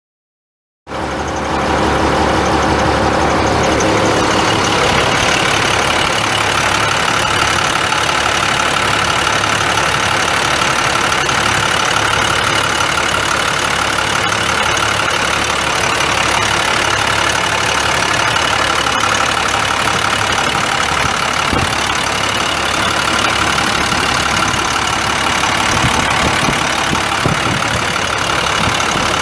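International DT466 7.6-litre inline-six turbo diesel of a 2000 International 4900 dump truck idling steadily. The sound starts abruptly about a second in.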